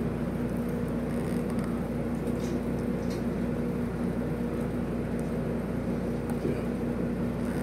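A steady low hum runs throughout, with faint, scattered mouth and fork clicks from someone eating.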